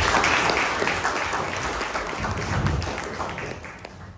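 Applause, many hands clapping at once, dying away near the end.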